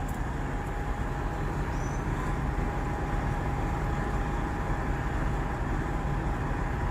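Semi-truck diesel engines idling: a steady low rumble with a faint, constant high whine above it.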